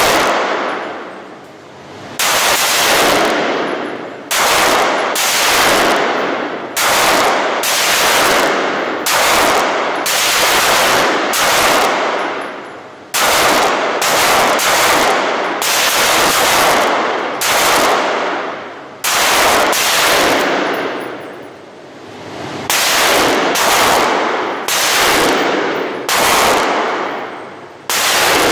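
9mm pistol fired repeatedly: about two dozen shots at roughly one a second, with a few pauses of a second or two. Each shot echoes and dies away in the hard-walled indoor range.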